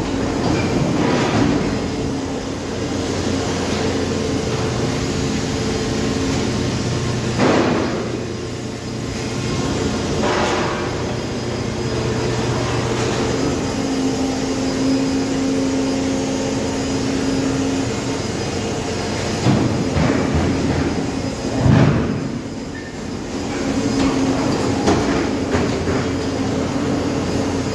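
Machinery of a concrete kerb stone production line running: a steady mechanical hum with a droning tone, broken by several sharp knocks, the loudest about two-thirds of the way through.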